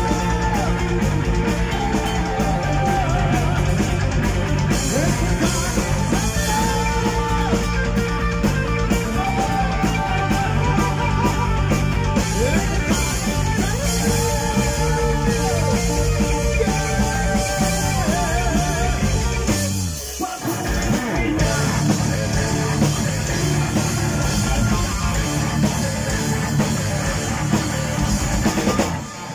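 Heavy metal band playing live: a male vocalist singing over electric guitars, bass and drums. About 20 seconds in, the bass and drums drop out for a moment before the full band comes back in.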